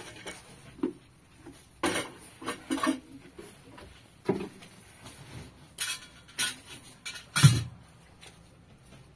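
Dishes and household containers being picked up and set down by hand: irregular knocks and clatters. There is a quick cluster of them about two to three seconds in, and the loudest, a dull thump, comes about seven and a half seconds in.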